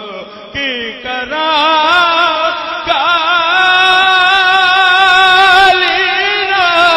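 A song playing, in which a singer holds one long, wavering, ornamented note with vibrato, starting about a second in.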